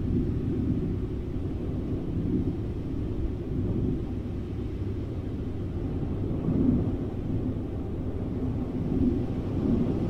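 A low, steady rumble that swells briefly a few times in the second half.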